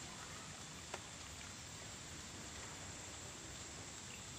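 Faint outdoor riverside ambience: a low steady hiss with a thin, steady high-pitched whine, and a single sharp click about a second in.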